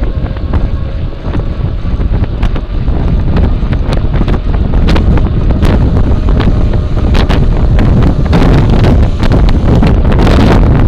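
Wind buffeting the microphone of a bike-mounted camera while riding, with road and tyre noise; it grows louder a few seconds in as speed builds. Frequent short clicks and rattles run through it.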